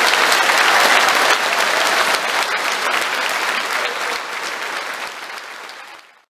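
Audience applauding, dense clapping that gradually fades and then cuts off abruptly near the end.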